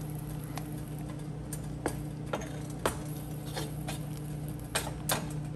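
Irregular light clicks and taps of kitchen utensils and containers against a pot while seasoning a tomato sauce on the stove, over a steady low hum.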